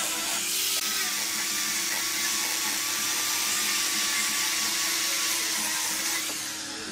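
Angle grinder fitted with a hook-and-loop sanding disc, running steadily while sanding wood: a steady motor whine over the hiss of abrasive on wood, easing a little near the end.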